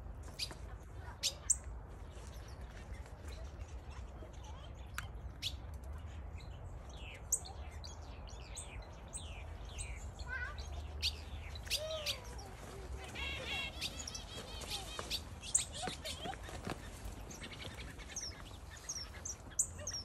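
Small aviary finches chirping and twittering, many short high calls one after another, with a stretch of buzzy, nasal chattering about two-thirds of the way through, over a steady low rumble.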